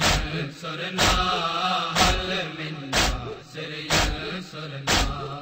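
Mourners doing matam: a crowd beating their chests in unison, one loud slap about once a second, with men chanting between the strokes.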